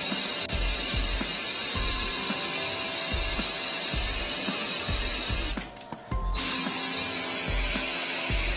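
Flex-shaft drain cleaning machine running, its spinning shaft scouring epoxy out of a floor drain line, with a steady high whine over the hiss of spraying water and a low knock about every three-quarters of a second. The sound drops out briefly a little past halfway and then comes back.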